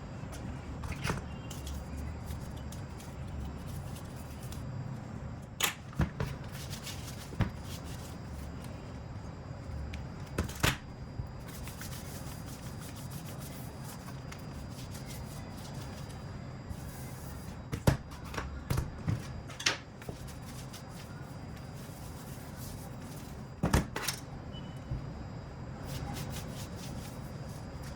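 Scattered sharp clicks and knocks of small hard objects, phones and tools, being handled and set down on a work surface, over a steady low background noise. A quick run of several clicks comes about two-thirds of the way through.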